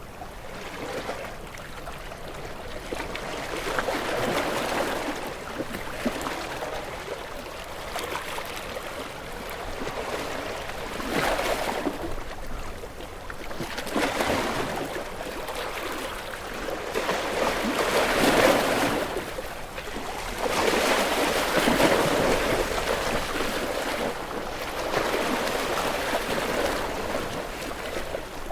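Ocean waves washing against rocks, each surge swelling and breaking into a rushing wash before ebbing, several times in a row, the strongest about two-thirds of the way through.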